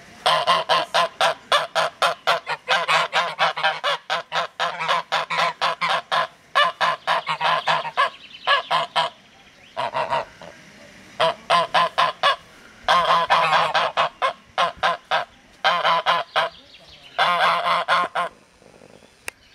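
White domestic geese honking in fast runs of about five calls a second, each run lasting one to three seconds with short pauses between.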